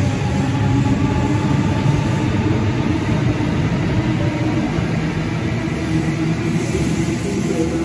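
Sydney Trains double-deck electric train running through an enclosed station platform: a loud, steady rumble of wheels on rail with a steady hum.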